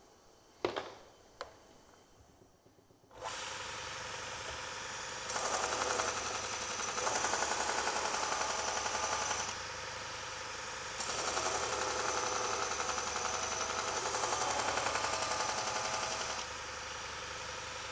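Robert Sorby ProEdge belt sander starting up about three seconds in and running, after two sharp clicks. A carving axe's steel bevel is then ground against the moving abrasive belt in two long passes, which are louder, with sparks thrown off the belt.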